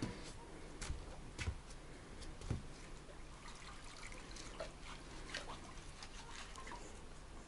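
Faint water dripping and trickling, with scattered small clicks and a few dull knocks in the first three seconds.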